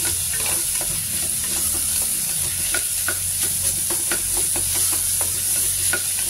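Wooden spatula stirring chopped onions and tomatoes in hot oil in an aluminium pressure cooker: quick repeated scrapes against the pan, about two or three a second, over a steady sizzle as the vegetables sauté.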